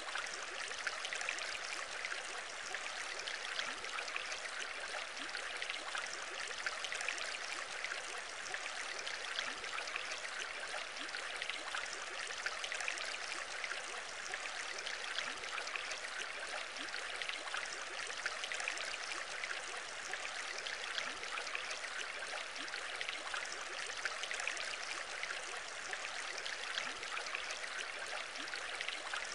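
Aquarium air bubbles rising and breaking at the water surface: a steady bubbling and trickling made of many tiny pops over an even water hiss.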